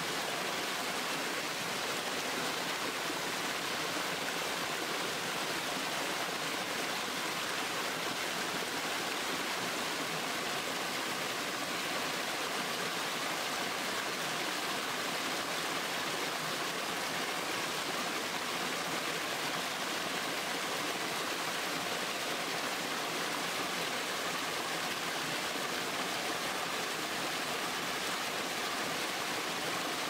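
Small stream cascading down a short steep drop, white water splashing and rushing in a steady, unbroken hiss that is strongest in the high pitches.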